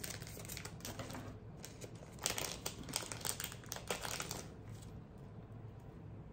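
Wrapping crinkling and crackling as a small keychain is unwrapped by hand: a quick run of crackles and clicks that stops about four and a half seconds in.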